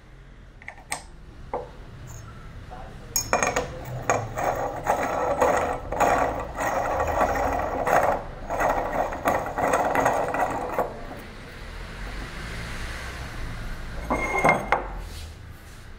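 A clear glass lamp globe being twisted onto a lamp's bulb socket, its threads grinding in a dense, gritty scrape for several seconds. A few light clicks follow near the end.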